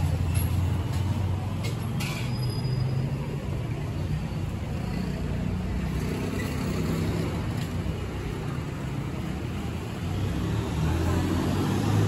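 City street traffic: a steady low engine rumble from vehicles on the road, with a couple of short clicks about two seconds in.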